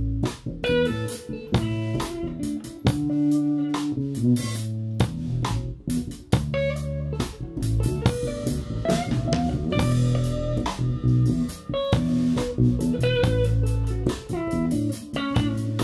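Instrumental trio playing live: electric guitar lines over electric bass and a drum kit keeping a steady beat with frequent cymbal strikes.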